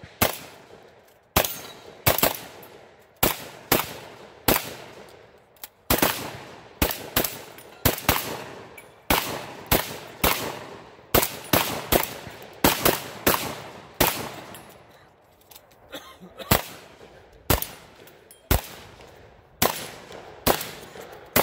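Rapid shotgun fire: around thirty sharp shots at irregular spacing, one to two a second, each with a short decaying tail. There is a brief lull about two-thirds of the way through, and the shots come more spaced out after it.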